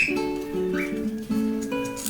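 Background music: plucked acoustic guitar notes.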